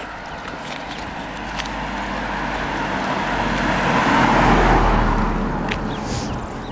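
A car passing by on the road, its tyre and engine noise building slowly to a peak a little past the middle and then fading away.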